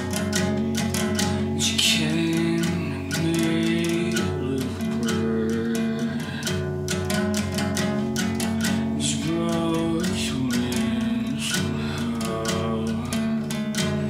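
A solo guitar played with picked notes: a quick, unbroken run of plucks over held bass notes.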